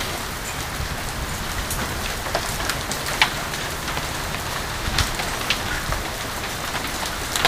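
Heavy rain with hail falling on a swimming pool and patio: a steady hiss with scattered sharp ticks of hailstones striking.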